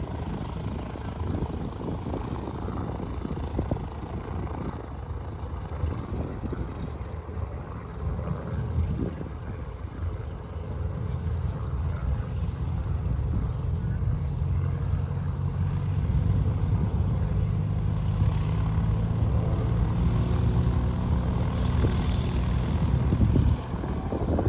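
Cessna 182 Skylane's piston engine and propeller running at low power, growing louder through the second half as the plane turns to taxi, then easing off just before the end.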